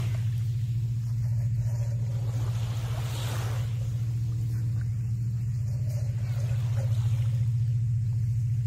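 Steady low engine drone with a fine pulsing texture, holding level throughout, with small waves washing at the water's edge about three seconds in.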